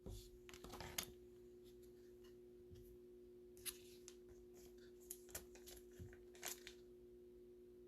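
Faint handling of trading cards and plastic card sleeves: soft rustling at first, then a few light, scattered clicks, over a steady low electrical hum.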